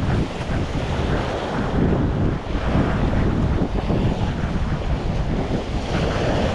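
Wind buffeting the microphone, with ocean surf washing against the jetty underneath: a steady, gusty rumble.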